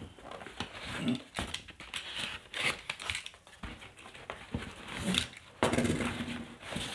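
Cardboard shipping box being cut and torn open with a knife: irregular scraping, tearing and crinkling of cardboard and packing tape.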